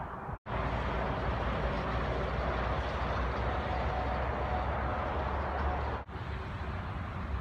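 Steady hum of highway traffic passing at a distance, with a low rumble. It cuts out for an instant twice: about half a second in and at about six seconds.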